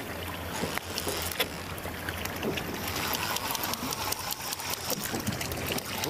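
Fishing boat ambience: a steady low hum under a haze of water noise, with scattered light clicks, while an angler fights a hooked barracuda on rod and reel.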